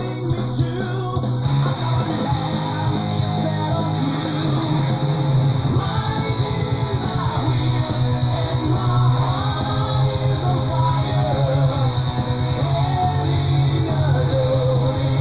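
Melodic metal recording playing: distorted electric guitars, bass and drums with a fast steady beat, and a wavering lead melody over them.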